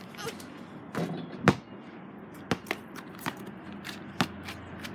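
Basketball bouncing on an asphalt driveway: a few sharp single bounces at uneven intervals, the loudest about a second and a half in.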